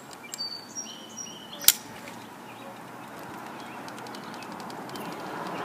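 Outdoor ambience: a few short high bird chirps, a single sharp click about a second and a half in, then a steady hiss that grows louder toward the end, like a car approaching on the street.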